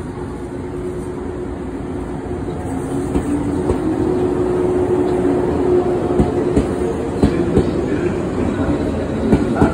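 JR West 115-series electric train running past along the station platform: a steady motor hum over rail rumble, growing louder in the first few seconds, with wheel clacks over the rail joints coming more often in the second half.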